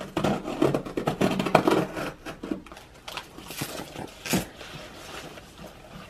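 A cardboard parcel being opened: a blade cuts and tears its packing tape in a quick run of crackles for the first two and a half seconds, then sparser rustles and knocks as the cardboard and foam packing peanuts are handled.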